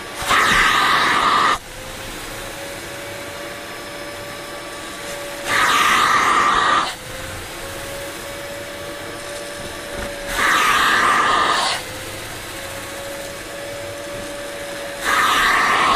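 Kärcher Puzzi 8/1C spray extractor's vacuum motor running with a steady drone, and four loud rushing, slurping suction strokes of about a second and a half each, about every five seconds, as the upholstery nozzle is pulled across the wet fabric seat and draws up dirty water.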